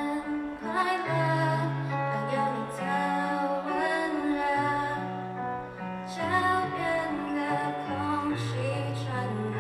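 A young woman singing into a microphone with a live band backing her, bass notes held long beneath her voice.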